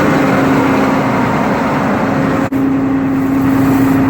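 John Deere 9610 combine's diesel engine running steadily with a constant hum. The sound drops out for an instant about two and a half seconds in.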